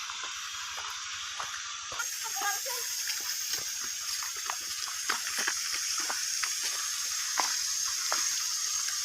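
Steady hiss of running or spraying water, louder from about two seconds in, with scattered drips and small splashes.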